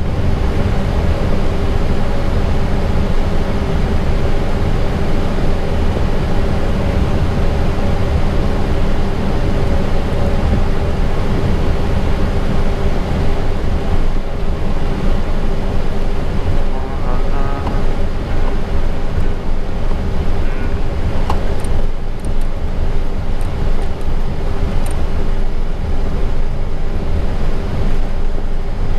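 Steady cockpit noise of an Airbus A320 taxiing with its engines at idle: a constant roar with a low rumble and a steady hum underneath.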